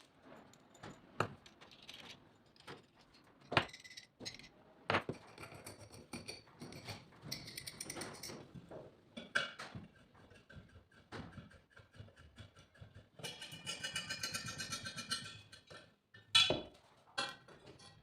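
Scattered clicks and knocks of small objects being handled, with a couple of seconds of jingling metallic rattle past the middle, like loose metal parts being shaken or sorted.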